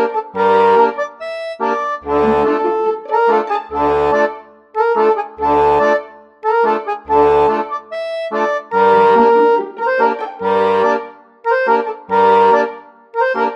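Instrumental background music: low bass notes alternating with short chords in a steady, bouncy rhythm, about one bass note every second and a half or so.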